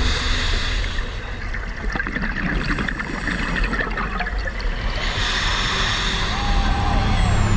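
Underwater bubbling and breathing from a scuba diver's regulator, with a scatter of small clicks.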